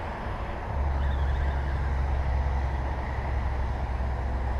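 Highway traffic noise, a steady roar. A deep, even low rumble comes in about a second in and holds.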